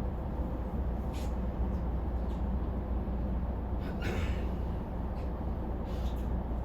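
Cabin of an E233-1000 series commuter train standing still after an emergency brake application: a steady low hum from the car's onboard equipment, with a few brief, faint higher-pitched noises.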